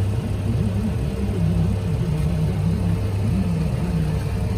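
Car engine idling with a steady low rumble.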